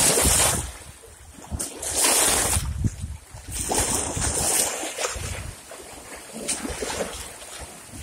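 Small waves splashing and washing against shoreline rocks in shallow water, in surges about every two seconds. The surges are strongest in the first half and softer later.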